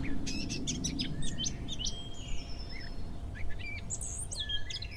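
Songbirds chirping: a quick, continuous run of short high chirps and whistled notes, over a low steady rumble.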